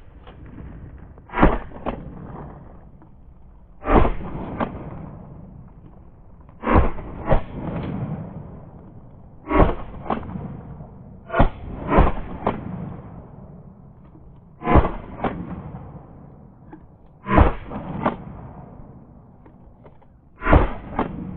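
Shotgun fired again and again at a flock of flying geese, a loud shot every two to three seconds. Each shot is often followed by a quieter bang about half a second later and leaves a rumbling tail.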